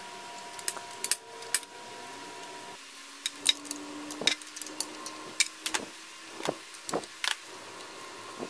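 Irregular sharp clicks and clinks of parts being handled as the carburetor and throttle linkage are worked loose on a 1981 Evinrude 25 hp outboard powerhead, over a faint steady hum that drops in pitch about three seconds in.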